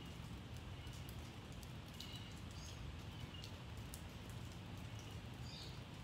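Light rain dripping from a roof edge, with scattered sharp ticks of drops over a steady low rumble. A few short, faint bird chirps come through about half a second in, around two and three seconds in, and near the end.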